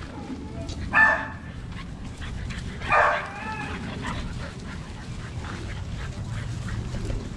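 American Bully puppies giving two short, high play barks, about a second in and again about three seconds in.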